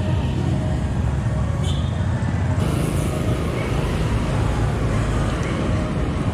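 Steady road traffic noise with a heavy low rumble. The sound shifts slightly at a cut about two and a half seconds in.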